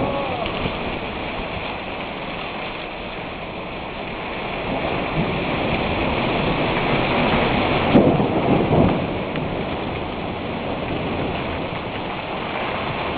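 Heavy rain pouring steadily during a thunderstorm, with thunder rumbling that swells to a sharp crack about eight seconds in.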